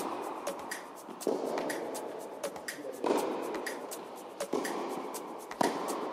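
Tennis balls struck by rackets and bouncing on an indoor court: a string of sharp pops about a second apart, each ringing on in the hall's echo, the loudest just before the end.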